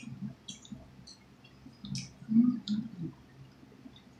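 Close-up eating sounds: scattered wet clicks and smacks of chewing, with a few louder, low mouth sounds a little after two seconds in.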